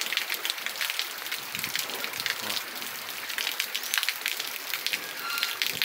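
Steady rain falling on wet ground and tree leaves, with many individual drops striking close by.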